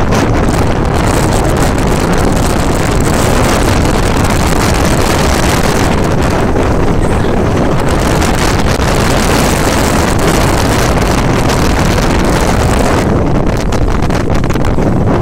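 Strong gusty mountain wind buffeting the microphone: a loud, continuous low rumble with a hiss on top that eases near the end.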